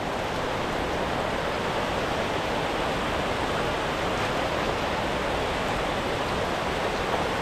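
Steady rush of a waterfall: an even wash of falling water that does not change.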